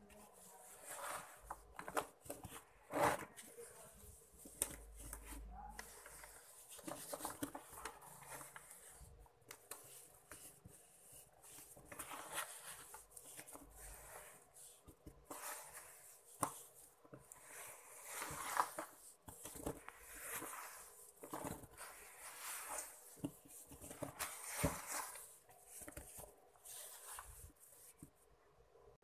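Hands crumbling and crushing soft, wet sand-cement chunks in shallow water, making irregular gritty crunching and crackling with scattered sharper crunches.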